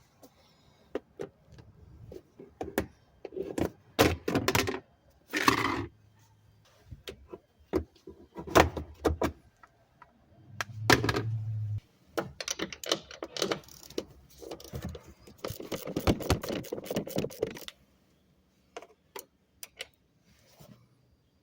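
Metal tools and parts clinking and knocking at irregular intervals, with a few longer stretches of scraping and rattling.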